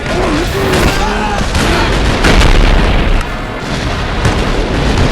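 Cartoon stomach-growl sound effect: a loud low rumble, loudest a little past the middle, with a high girl's voice briefly near the start.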